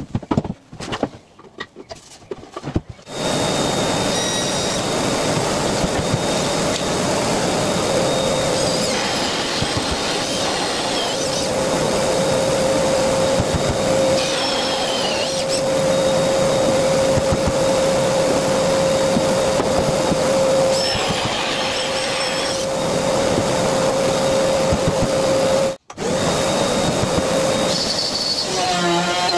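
Power tools cutting into a veneered board: a cordless drill driving a hole saw, then a trim router, over the steady hum of a dust extractor. The sound starts about three seconds in and briefly drops out near the end.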